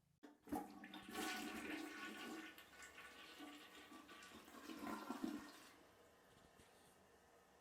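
Toilet flushing: a rush of swirling water that starts just after the opening and swells until about five and a half seconds in, then drops to a faint steady hiss.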